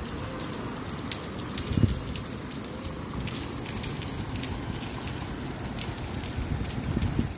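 Steady rain falling on a concrete rooftop, with scattered drips. There is a low rumble about two seconds in and again near the end.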